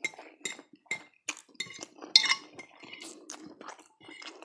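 Metal fork clinking and scraping against a plate while twirling spaghetti: a quick run of light clinks, the loudest a little past halfway.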